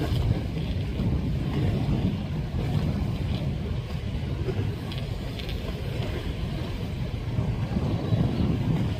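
Passenger speedboat's engines running, a steady low rumble mixed with wind on the microphone.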